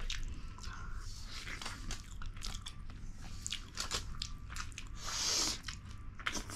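Close-miked eating sounds: chewing, crunching and lip smacks of people eating king fish curry with rice, as many short sharp clicks. A brief hiss about five seconds in.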